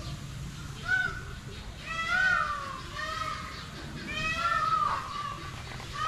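Repeated drawn-out, meow-like animal calls, about five in a row, each rising and falling over roughly half a second, over a low steady background.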